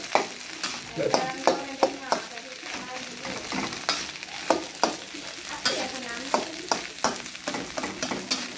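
Metal spatula scraping and knocking against a wok while fried rice is stir-fried, irregular strokes about twice a second over a steady sizzle from the hot pan.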